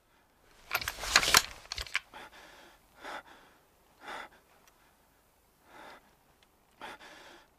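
A frightened man gasping and breathing hard: one loud, ragged gasp about a second in, then five short breaths, each a second or so apart.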